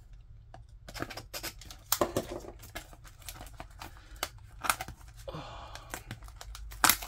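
Plastic shrink wrap being slit and peeled off a small cardboard booster box: scattered clicks and taps, then a stretch of crinkling and tearing about five seconds in.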